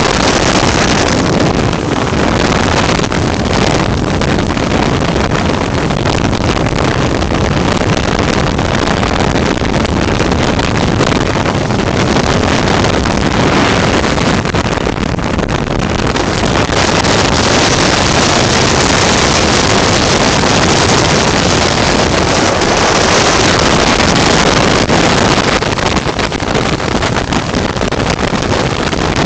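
Open-cockpit microlight in flight: a steady engine drone under a loud rush of wind over the microphone. The hiss brightens for several seconds past the middle.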